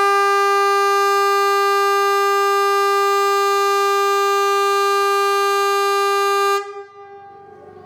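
Kockums Tyfon compressed-air civil defence horn ("Hesa Fredrik") giving one steady, very loud blast of about seven seconds, which cuts off abruptly near the end. It is one blast of Sweden's "Important Message to the Public" (VMA) warning signal test. Fainter horns at the same pitch carry on for a moment after it stops.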